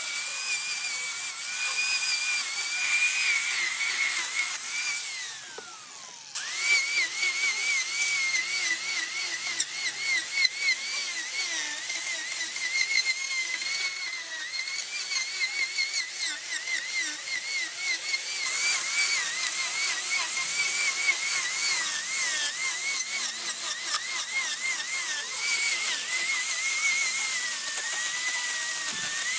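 A high-speed electric power tool cutting wood: a high whine that wavers and dips as it bites, over a hiss of cutting. About five seconds in it winds down with a falling pitch, then starts up again about a second later and keeps cutting.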